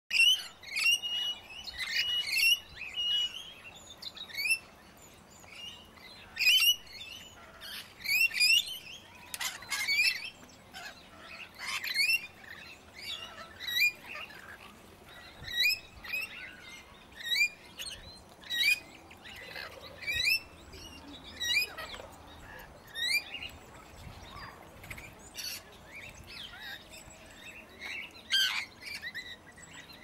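Red-rumped parrots calling: short, sharp chirping notes about once a second, with a quicker run of chirps and held whistles in the first few seconds.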